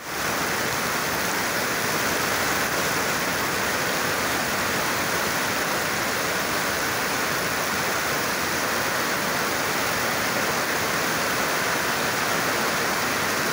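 Heavy rain pouring down, a steady, even hiss of water coming down hard.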